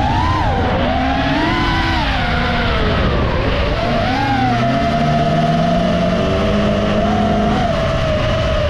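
Autocross race car engines revving hard and accelerating, one climbing in pitch through the gears from about four seconds in, with a higher whine rising and falling above them.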